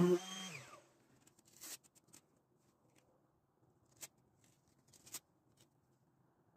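Cordless random orbital sander being switched off about a split second in, its motor hum falling in pitch as it winds down. It is then nearly quiet, with a few faint clicks and rustles as the sander's pad is handled by hand.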